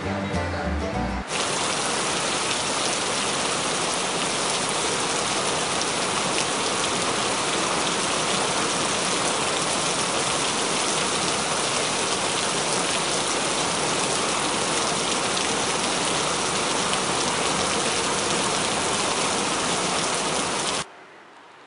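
Music for about the first second, then cut off suddenly by a steady, even rushing hiss like heavy rain, with no tones or rhythm in it, which drops away shortly before the end to a much quieter stretch.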